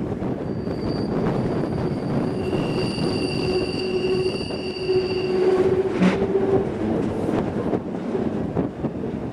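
Bernina line electric train running, with its wheels squealing on a curve in several high, steady tones for about five seconds. A single sharp knock comes about six seconds in.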